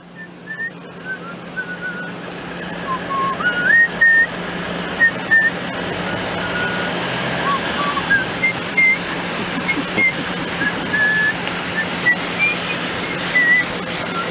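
Train running, a steady low hum and rumble that swells over the first few seconds. Over it, someone whistles a tune in short notes that step up and down in pitch.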